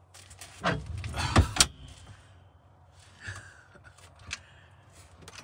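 Van passenger seat being unlocked and turned on its swivel base: a burst of metal clunks and rattles lasting about a second, then a fainter squeak and a single click a few seconds later.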